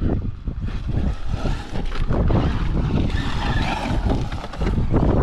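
Gusty wind rumbling on the microphone, with a rushing noise swelling about two to four seconds in.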